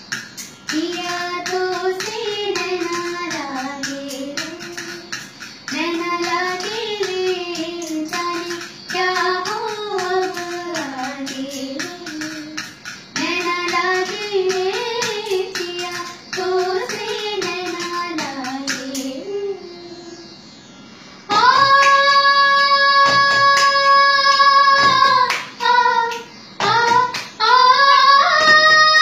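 A voice sings a melody in phrases with short breaks, over a steady pattern of sharp taps and claps of a cup-song rhythm. About three-quarters of the way in it changes to a louder passage of long held notes.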